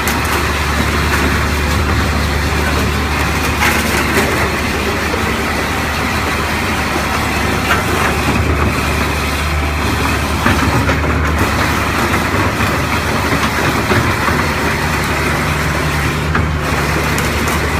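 Kubota KH400-7 excavator's diesel engine running steadily, a constant low hum with a hiss over it.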